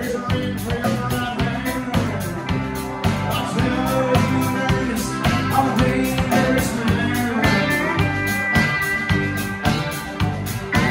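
Live country-rock band playing an instrumental passage: drum kit keeping a fast, even beat under acoustic and electric guitars, with a long high note held from about two-thirds of the way in.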